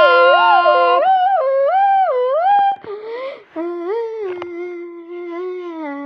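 A humming, voice-like sound whose pitch wavers up and down, over a steady lower drone that stops about a second in. About three seconds in there is a brief hiss, then a steadier, lower hum.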